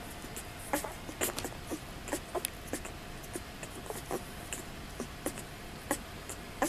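Newborn Presa Canario puppies suckling at their mother's teats: irregular wet smacking and sucking clicks, two or three a second.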